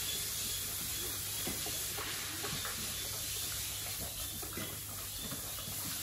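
Large white pigs feeding at a wet trough, with irregular wet chomping and slurping over a steady hiss.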